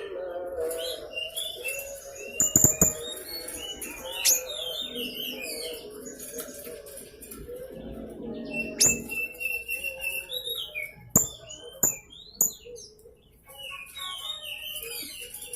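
Young blue-crowned hanging parrot (serindit) singing energetically: a rapid stream of sharp, high chirps, clicks and quick twittering notes with brief pauses.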